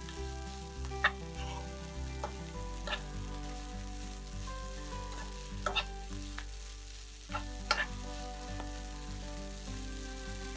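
A metal spoon stirring and scraping vermicelli noodles in a frying pan as they fry, with a few sharp clicks where the spoon strikes the pan.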